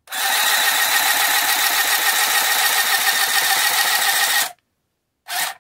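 Handy Stitch handheld sewing machine running, stitching through heavyweight cardstock: a steady, rapid mechanical run for about four and a half seconds, then a brief second run near the end.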